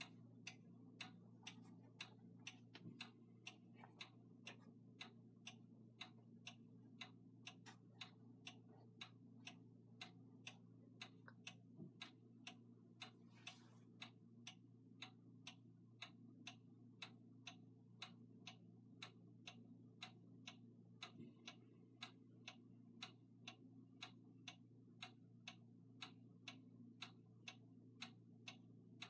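Camer 31-day pendulum wall clock ticking quietly and evenly, about two ticks a second.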